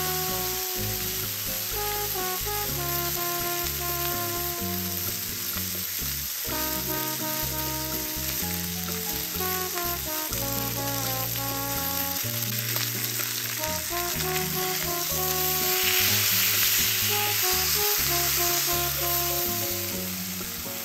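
A chicken leg quarter coated in piri piri sauce sizzles and spits on a hot ridged cast-iron grill pan, with background music playing over it. The sizzle grows louder for a few seconds near the end.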